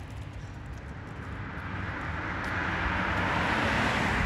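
Road traffic going by, a steady rush of tyres and engines with a low engine drone. It grows louder through the second half as vehicles come closer.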